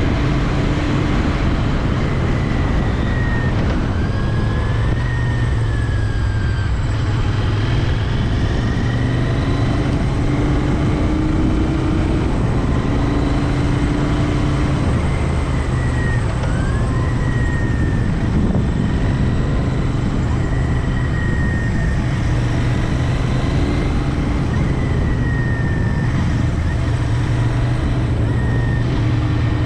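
Royal Enfield Interceptor 650's 648 cc parallel-twin engine running under way, its pitch rising and easing a few times as the revs change.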